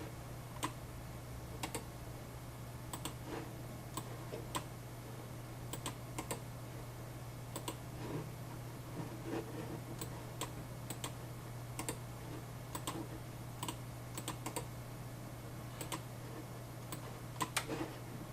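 Scattered clicks and keystrokes of a computer mouse and keyboard, irregularly spaced, over a steady low hum.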